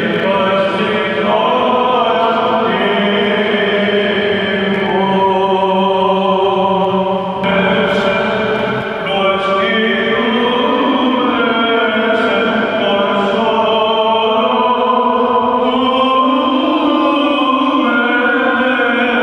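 Greek Orthodox Byzantine chant: male voices singing long, slowly moving melodic lines over a steady held low note, echoing in the church.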